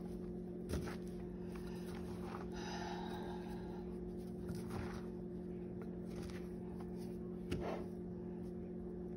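A steady low hum runs under faint rustling of chicken strips being tossed by hand in a bowl of seasoned breading mix, with two soft knocks against the bowl, one near the start and one near the end.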